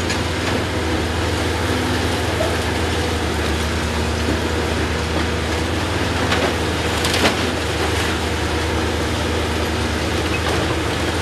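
Komatsu hydraulic excavators' diesel engines running steadily under load, a deep low drone, as they pull apart a collapsed concrete building. A few sharp knocks come a little past the middle.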